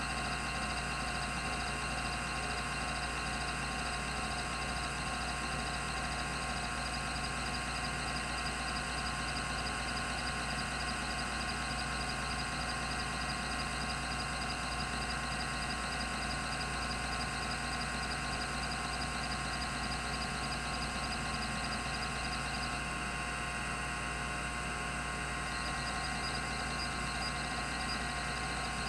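Rodime RO352, a 10 MB 3.5-inch hard drive with two platters, running with its spindle at speed: a steady hum and whine made of many fixed tones. A fast high-pitched pulsing in the whine stops for a couple of seconds about three-quarters of the way in, then returns.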